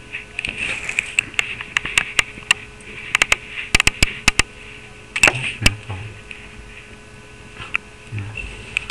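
Irregular sharp clicks and taps, thickest about three to four and a half seconds in, over a faint steady hum.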